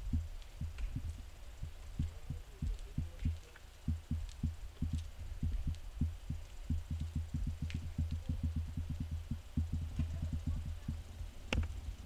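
Low thumps on the microphone over a steady low rumble, irregular at first and then about three a second, with one sharp click near the end.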